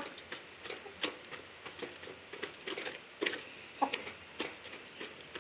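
Hens pecking feed from a hanging feeder's pan: irregular light taps and clicks of beaks on the pan and in the feed, a few each second.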